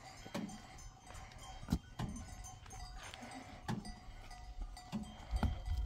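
Bells on herded livestock clanking irregularly, with a faint ringing between the knocks.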